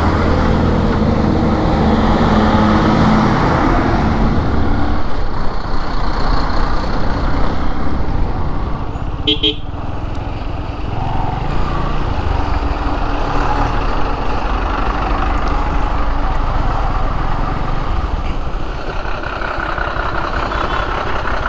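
Diesel tipper trucks running close alongside a motorcycle as it rides past them, engine noise mixed with wind and road noise, the truck engine heaviest in the first few seconds. A short horn toot sounds about nine seconds in.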